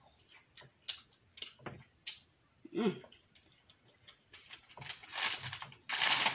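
Close-up mouth sounds of someone chewing a bite of seafood: scattered wet clicks and smacks, with a short hummed "mm" about three seconds in. Near the end comes about two seconds of rustling.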